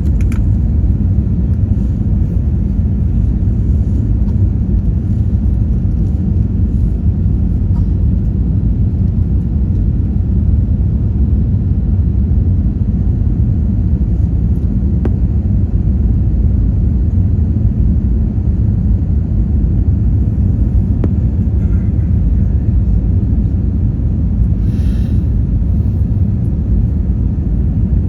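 Steady low rumble of a passenger jet heard from inside the cabin, engines and airflow running without a break.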